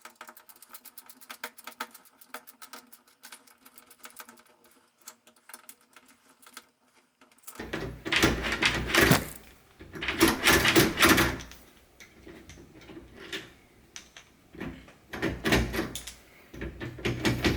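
Rapid fine clicking, then louder metallic clattering and clunks in several bursts from about eight seconds in, as the parts of a door lockset are fitted and worked.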